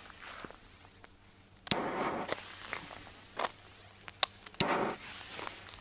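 Footsteps crunching on sandy ground and a few sharp clicks and crackles while a small Dumbum F2 friction-head firecracker burns on the ground, then its sharp bang right at the very end.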